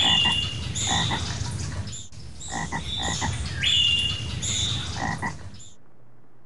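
Jungle ambience track of frogs croaking, with rhythmic clicks and high whistled calls; the same stretch of calls repeats as a loop. It cuts off abruptly about three-quarters of the way through, leaving a faint low hum.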